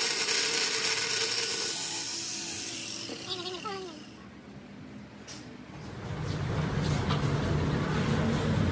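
Workshop machinery: a loud, steady hissing, grinding noise that fades out after about three seconds with a few brief squeals. About six seconds in, a low, steady machine hum takes over.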